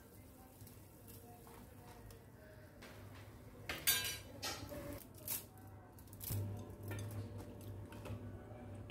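A metal utensil clinking against steel cookware several times in the middle stretch, the loudest strike about four seconds in, over a faint steady hum.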